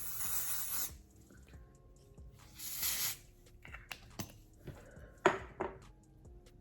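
Aerosol can of lace bond wig adhesive spraying in two hisses, the first ending about a second in and a shorter one about three seconds in, followed by a few sharp clicks.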